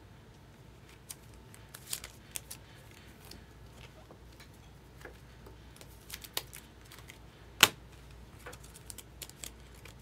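Scattered light clicks and ticks of small handling, irregular and faint, with one sharper click about three quarters of the way through.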